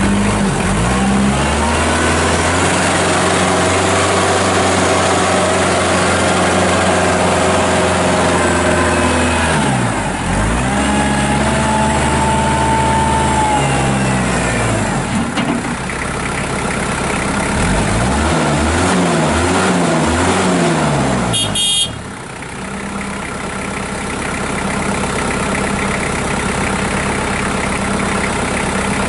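Kubota L4740 tractor's diesel engine running under way, its revs rising and falling several times as it is driven. About 22 seconds in there is a brief sharp sound, and the engine then drops back to a steady idle.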